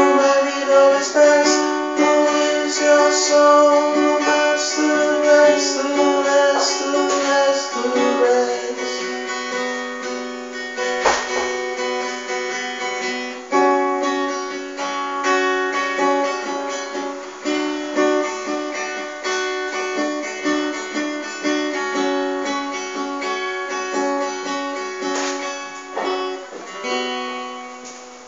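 Solo acoustic guitar playing an instrumental passage of ringing chords and picked notes, fading as the final chord dies away near the end.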